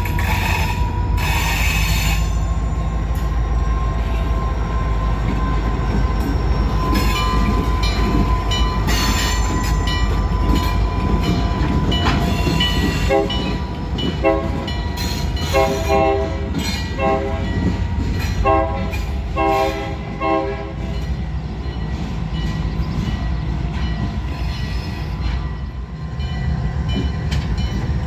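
Freight train rolling past with a steady low rumble and a thin, steady high squeal. About halfway through, the diesel locomotive's multi-chime horn sounds a quick run of short blasts for several seconds.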